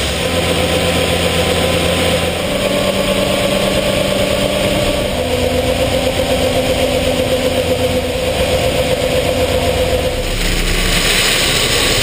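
Case IH Magnum 305 tractor's diesel engine running with a steady drone that shifts in pitch a couple of times. About ten seconds in, a hiss joins it: shelled corn pouring from the grain cart's auger spout.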